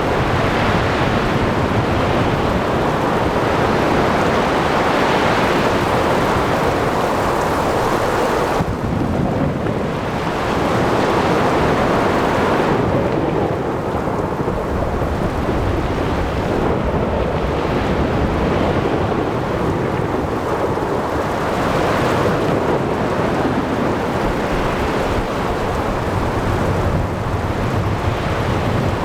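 Thunderstorm at sea: steady heavy rain with low rumbling thunder rolling underneath, with no pause.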